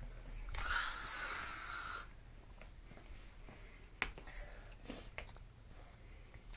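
An aerosol insecticide spray can hissing in one burst of about a second and a half, followed by two faint clicks.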